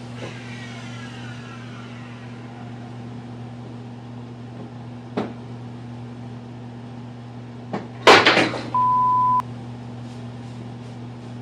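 Workshop sounds over a steady low electrical hum: a motor winding down with a falling whine at the start, a single knock about five seconds in, then a loud clatter about eight seconds in followed by a short steady electronic beep.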